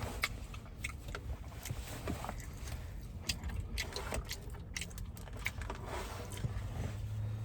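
Close-up chewing of a mouthful of food: small irregular wet clicks and smacks over a low steady hum.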